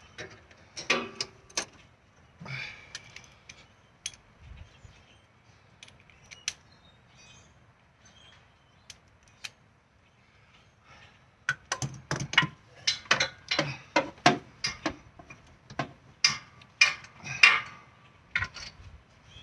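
Metal hand tools at work on spark plug removal: a socket ratchet clicking and sockets and extension clinking, scattered at first, then a busier run of rapid clicking over the second half.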